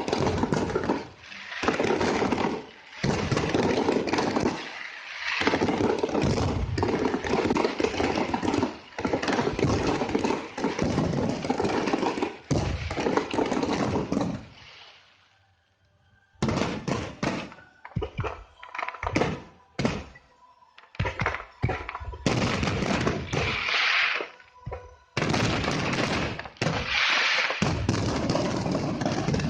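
Fireworks going off in rapid, dense strings of bangs, like machine-gun fire; about halfway through they stop for a couple of seconds, then start again as scattered bangs that build back into a dense barrage.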